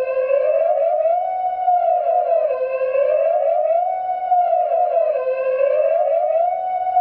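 Synthesized alarm siren: a steady tone wavering up and down about once a second, overlaid with higher tones that sweep down and up roughly every second and a half.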